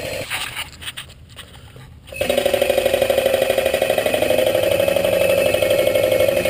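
Hydraulic shop press's pump running with a rapid, even pulsing buzz while it pushes a shaft out of a drill-press pedestal base. It drops away briefly near the start and starts again about two seconds in.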